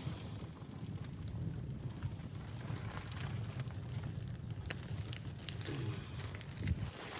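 A steady low rumbling noise with scattered sharp crackles and clicks, one a little louder shortly before the end.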